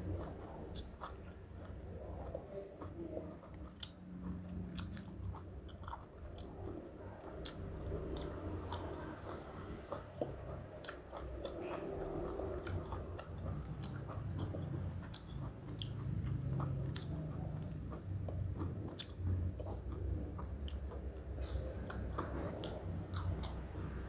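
Close-up chewing of a mouthful of spicy pork salad, sticky rice and raw greens, with many wet mouth clicks and lip smacks and occasional crisp crunches.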